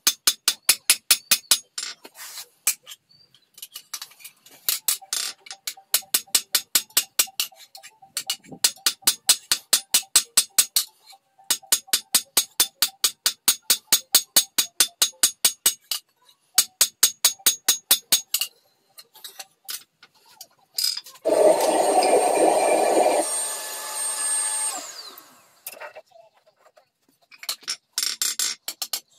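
Hand hammer striking a handled top tool on a steel plate over an anvil: quick runs of ringing metal-on-metal blows, about four a second, with short pauses. About two-thirds of the way through, a power tool runs for a few seconds, then winds down.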